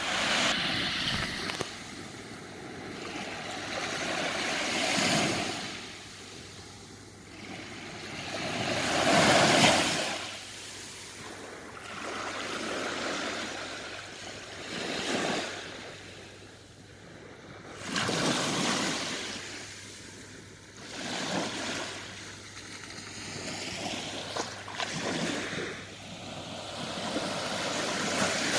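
Small sea waves breaking and washing up the beach, swelling and falling away every three to five seconds, the loudest break about nine seconds in.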